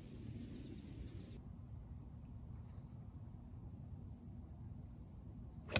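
Quiet outdoor background with a faint steady high hum, then near the end a single sharp crack of a 5-iron striking a golf ball on a fairway shot.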